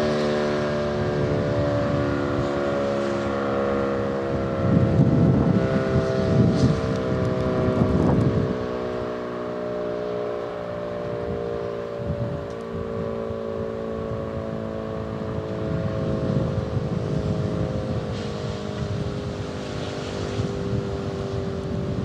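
Sentry 10V2T dual-tone outdoor warning siren sounding a steady chord, its pitch drifting slowly lower. Wind buffets the microphone in gusts.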